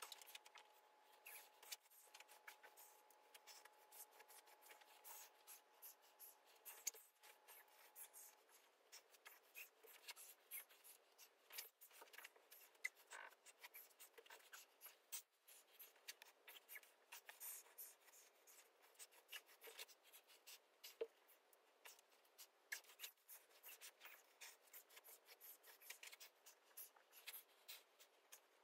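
Near silence, with faint scattered rustling and small clicks of movement on a yoga mat. A faint steady tone stops about eight seconds in.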